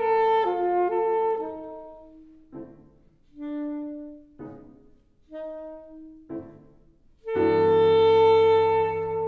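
Chamber music played by a small wind ensemble: a held chord of several notes, then sparse short notes with pauses between them, then a loud sustained chord near the end.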